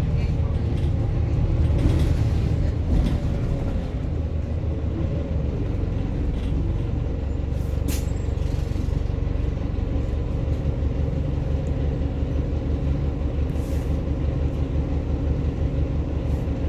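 Cabin sound of a Volvo B5TL double-decker bus under way: its four-cylinder diesel and drivetrain give a steady low rumble with road noise. A short, sharp hiss comes about eight seconds in.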